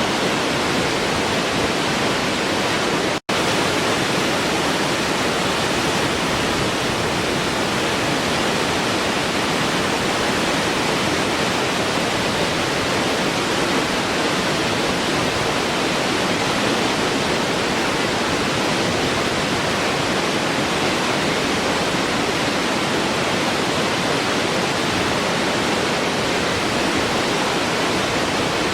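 Waterfall rushing: a steady, even roar of falling water, broken by a split-second silent gap about three seconds in.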